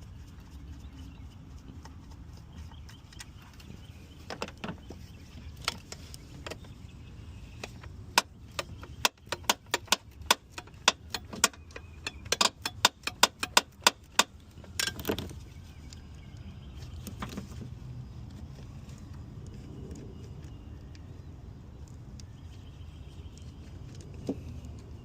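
A run of sharp metallic clicks and clinks from hand tools working bolts in an engine bay, coming thick and irregular, about two or three a second, for several seconds in the middle, over a low steady rumble.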